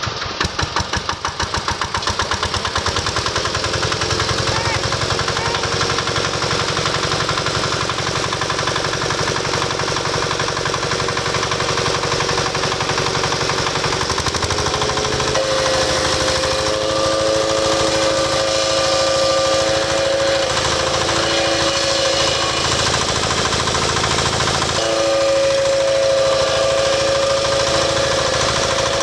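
Wood crusher machine running, speeding up over the first couple of seconds and then running steadily. From about halfway in a steady whine rides over it, breaks off briefly, and returns near the end.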